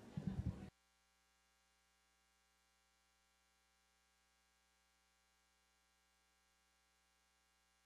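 Near silence: the room sound cuts off abruptly less than a second in, leaving only a faint steady electrical hum.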